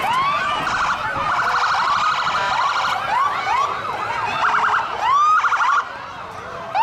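Several police car sirens sounding together: short rising whoops over and over, mixed with stretches of a fast pulsing electronic tone, loudest about five seconds in.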